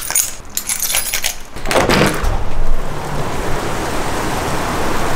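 A door clicking and rattling open. About two seconds in, the steady rush of a hail shower takes over: ice pellets falling outside, with a low rumble under it.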